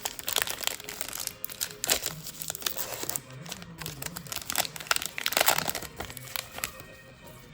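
Baseball card packs and cards being handled, with irregular crinkling and rustling of wrapper and card stock.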